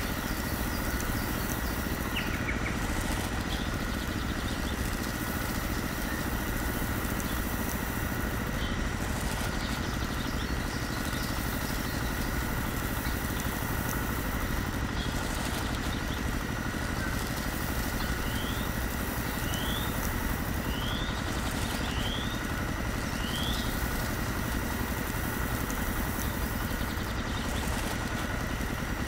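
A small belt-driven feed-grinding machine running with a steady mechanical hum and a thin high whine. Birds chirp several times in quick succession about two-thirds of the way through.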